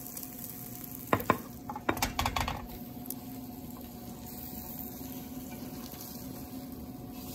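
Tuna croquettes sizzling in a little olive oil in a nonstick frying pan, with a spatula clacking against the pan a few times between about one and two and a half seconds in.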